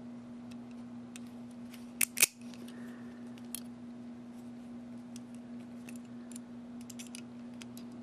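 Metallic clicks from handling a cutaway brass CCL Sesamee combination padlock: two sharp clicks about two seconds in, then scattered faint ticks, over a steady low hum.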